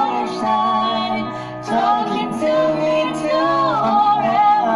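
A young woman singing a slow melody over instrumental accompaniment.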